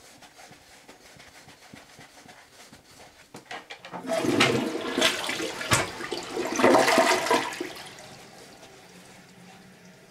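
Toilet flushing with toilet paper in the bowl. The water rushes in about four seconds in, runs loud for a few seconds and dies away, taking the paper down without clogging.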